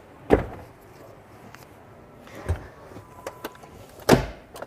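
Third-row seat of a 2021 Kia Sedona minivan being folded down by hand: a sharp clunk as the seat drops, a softer knock and a few light latch clicks, then a second loud thud about four seconds in.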